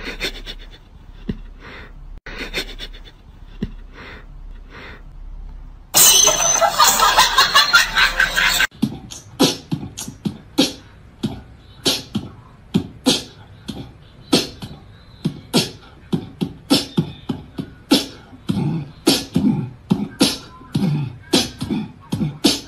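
A rhythmic run of sharp percussive clicks and beats, beatbox-like, with a loud rushing hiss about six seconds in that lasts nearly three seconds.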